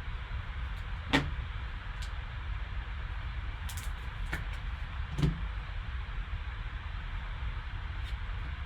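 Trading cards being handled on a table: a few short taps and clicks over a steady low hum and hiss.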